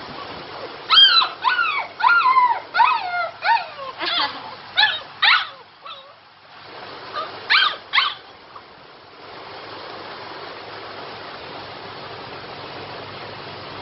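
Alaskan Malamute puppy whining: a quick run of about ten short, high-pitched whimpers, each rising then falling in pitch, then two more about eight seconds in. A steady hiss fills the rest.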